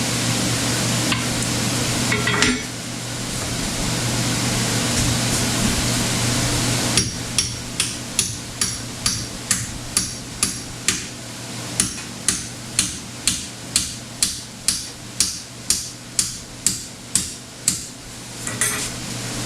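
Hammer blows, about two a second, starting some seven seconds in and going on for over ten seconds, each strike ringing briefly. This is likely a part being knocked into place on a molder planer. Before the strikes there is a steady hiss, and a low hum runs underneath throughout.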